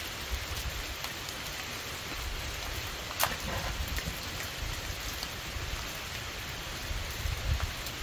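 Steady rain falling, pattering on the surroundings. About three seconds in, a single sharp scratch with a brief flare as a strikable fire starter is struck to light the stove.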